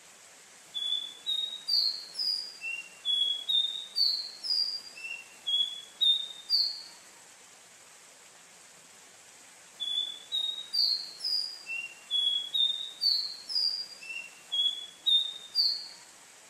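A caboclinho (capped seedeater) singing two phrases, each a quick series of about a dozen clear, slurred whistled notes lasting around six seconds, with a pause of about three seconds between them.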